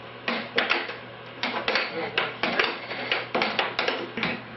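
Air hockey puck and mallets clacking in a fast rally: over a dozen sharp hits at an uneven pace.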